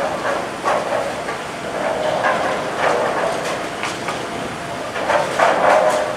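Bowling alley din: balls rumbling down the wooden lanes and pins clattering, with several sharp crashes of pins, the loudest near the end.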